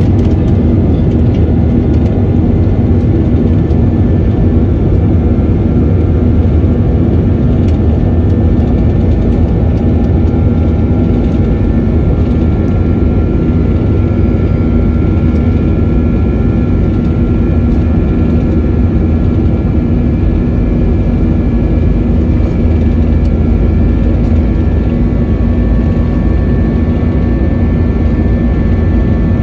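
Airbus A321-200's two IAE V2533-A5 turbofan engines at takeoff power, heard from inside the cabin: a loud, steady rumble with a steady whine of fan tones over it.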